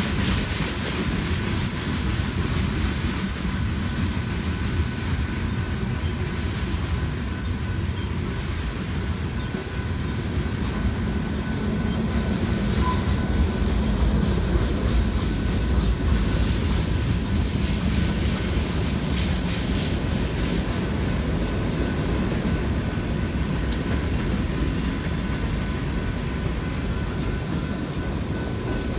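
Freight train cars (tank cars, covered hoppers and boxcars) rolling steadily past: a continuous low rumble of steel wheels on rail with scattered clacks over the rail joints.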